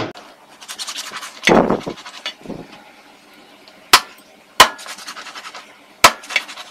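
Meat cleaver chopping raw chicken pieces on a wooden cutting board: four sharp chops, one at the start, two close together about four seconds in and one about six seconds in, with quieter scraping and handling noises between.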